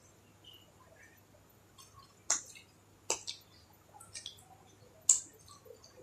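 Close-miked eating: wet mouth clicks and lip smacks of a person chewing. It is nearly quiet at first, then about two seconds in come five or so sharp smacks, roughly a second apart.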